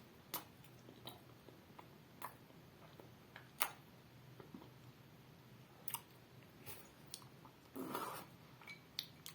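Faint mouth sounds of chewing a soft date close to the microphone: a dozen or so scattered soft clicks, with a slightly longer sound near the end.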